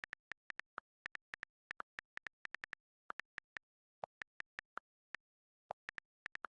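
Rapid typing: sharp keyboard key-press clicks, several a second in quick runs, with short pauses a little after three seconds and around five seconds in. A few of the clicks are deeper than the rest.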